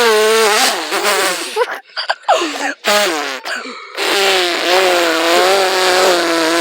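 A boy imitating a motorcycle with his mouth: a buzzing lip-trill 'brrr' held in long wavering notes, one at the start and a longer one from a little past the middle, with short bursts between. It comes out sounding less like an engine than a fart.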